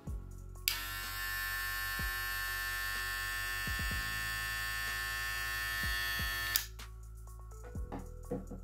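Wahl Cordless Senior cordless hair clipper switched on with a click, its blade buzzing steadily for about six seconds, then switched off suddenly.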